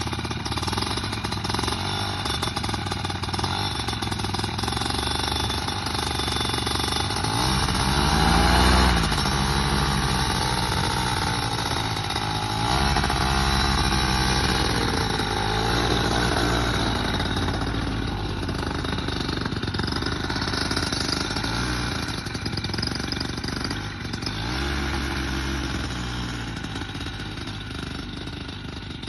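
Flex-wing microlight trike's engine and pusher propeller running, with the revs rising and falling a few times as it taxis away. It grows fainter near the end.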